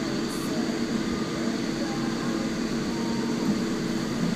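Engine of a piece of heavy equipment, likely an excavator, running steadily with a low, even drone.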